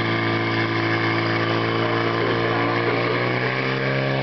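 Portable fire pump's engine running steadily at a constant high pitch, pumping water out through the hose lines to the nozzles during a fire-sport attack.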